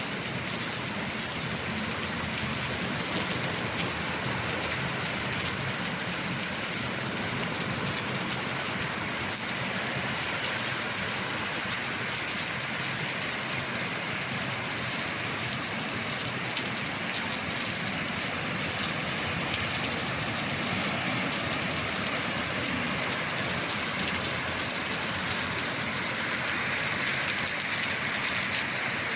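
Steady rainfall: a dense, even hiss of rain falling and pattering on surfaces.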